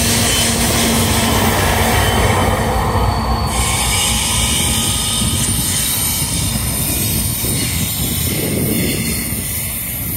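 Freight train rolling past, its wheels squealing on the rail with thin, steady high tones over the rumble; the highest part of the sound drops away about three and a half seconds in.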